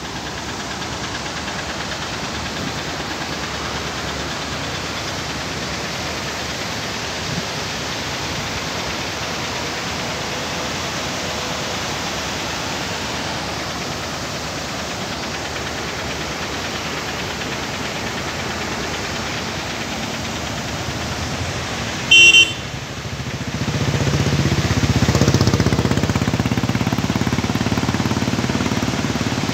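Rushing water of a rocky stream cascade, a steady hiss. About three-quarters of the way in a vehicle horn sounds once, briefly, and then a vehicle engine's low rumble rises and grows louder.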